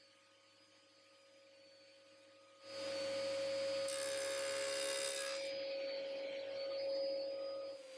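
Table saw cutting through wood as a crosscut sled is pushed through the blade. The cut starts suddenly about two and a half seconds in and runs until just before the end, over a steady high-pitched tone.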